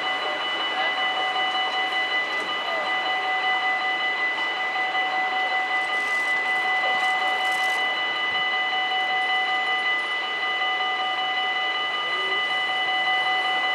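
Dutch level-crossing warning bells ringing steadily without a break while the barriers are down, signalling that a train is due.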